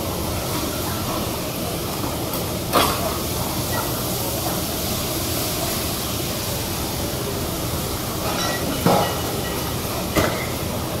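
Bean sprouts sizzling on a teppanyaki steel griddle as they are stir-fried with metal spatulas: a steady hiss, with three sharp clacks of spatula on steel, one about three seconds in and two near the end.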